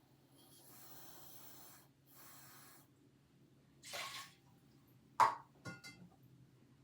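Rinsing rice at the kitchen sink: water runs faintly twice, then a swish, a sharp knock and a few ringing clinks of cookware about five seconds in.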